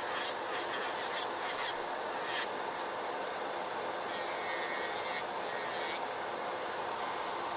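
Electric nail drill with a sanding band filing an acrylic nail in several short strokes during the first couple of seconds, over the steady fan noise of a Makartt nail dust collector that runs on alone after the strokes stop.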